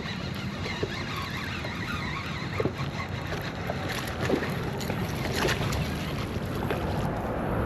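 Wind and water noise with scattered small clicks and splashes as a hooked speckled trout is reeled in and landed.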